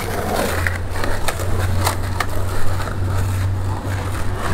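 Skateboard wheels rolling over asphalt: a steady low rumble, with a few short clicks in the first half.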